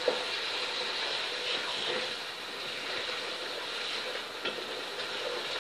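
Chicken pieces and ginger-garlic paste sizzling in hot oil in a pot, stirred with a wooden spoon, with a couple of faint knocks of the spoon against the pot.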